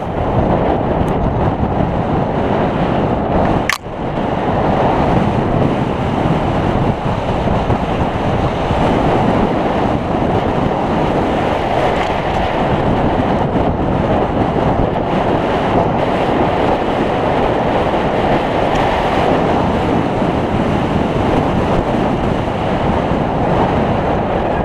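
Steady rush of wind over the microphone mixed with tyre rumble and rattling from a downhill mountain bike descending a dirt trail at speed. The noise drops out briefly about four seconds in.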